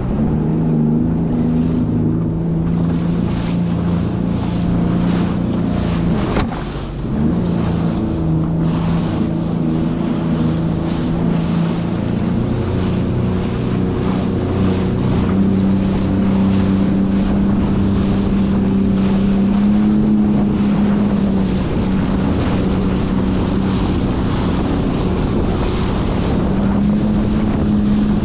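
Sea-Doo Fish Pro jet ski engine running steadily under way, with wind buffeting the microphone. The engine note dips briefly about six seconds in, then climbs a little higher about halfway through.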